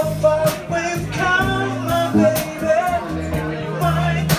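Live band playing a soft-rock song: a man sings lead over electric guitar, bass guitar, keyboard and drums, with regular cymbal strokes keeping time.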